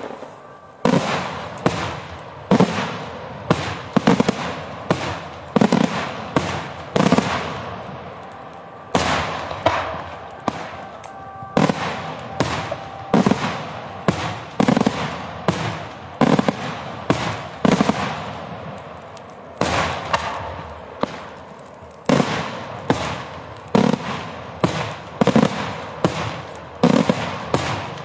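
Daytime aerial fireworks shells bursting overhead in a steady run of sharp bangs, roughly one a second, each trailing off briefly, with a short lull about eight seconds in.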